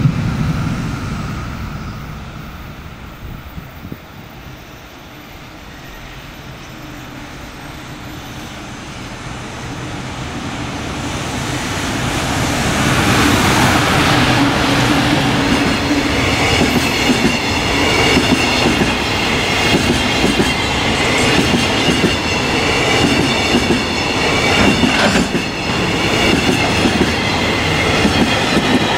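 JR Freight EF200 electric locomotive hauling a container freight train at speed: a rumble that grows as it approaches and peaks as the locomotive passes about thirteen seconds in. Then comes the steady rolling of container wagons, with clickety-clack over rail joints and high ringing tones from wheels on rail.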